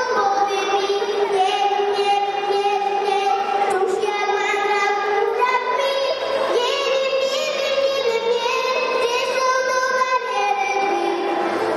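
A young girl singing an upbeat song into a handheld microphone, her voice amplified, holding long notes and stepping between them.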